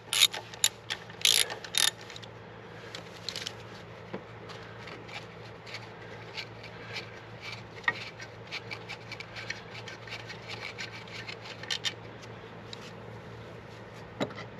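Ratchet wrench clicking while undoing a bolt on a Mercedes EGR valve. It gives a few loud, sharp clicks in the first two seconds, then lighter, irregular ticking as the bolt is run out.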